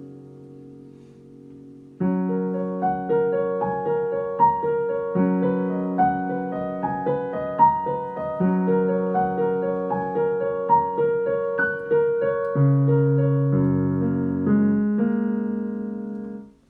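Piano music. A held chord dies away, then about two seconds in a slow melody over chords begins and plays on until it stops abruptly near the end.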